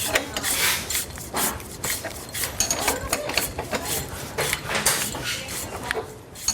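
Metal hand tools and bolt hardware clinking and clattering irregularly: wrenches and sockets knocking against each other and against the suspension parts while bolts are worked.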